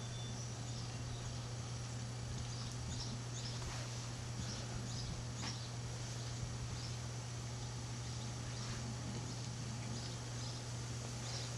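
A bee swarm clustered in a tree, buzzing as a steady low hum. A few faint high chirps come through in the first half.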